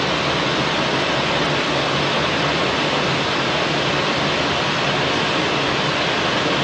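Steady rushing noise inside an airliner cockpit in flight, even and unchanging throughout.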